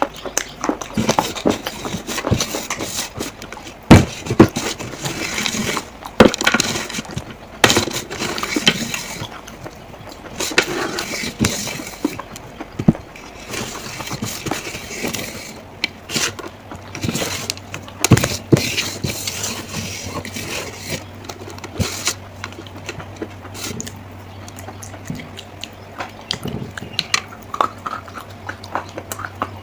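Dry baked clay crunching and cracking in irregular sharp snaps and clicks, some louder than others; a low steady hum joins partway through.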